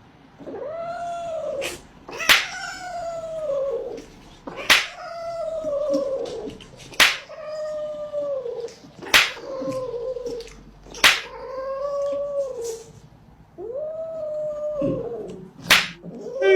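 A pet animal giving a series of about seven drawn-out, howl-like cries, each rising and then falling in pitch and lasting a second or more, repeated roughly every two seconds. Sharp clicks fall between the cries.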